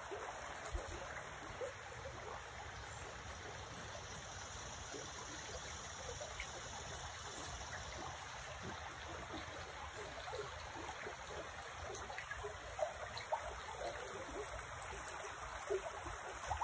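Shallow creek flowing and trickling steadily over stones.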